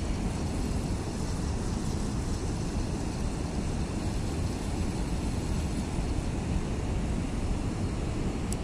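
Steady low rushing rumble of wind buffeting the camera's microphone.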